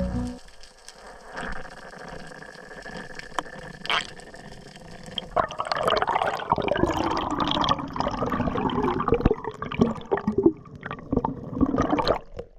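Water heard through an underwater camera: a faint hiss at first, then from about five seconds in a busy run of bubbling and sloshing full of small clicks and pops, with air bubbles streaming past the lens.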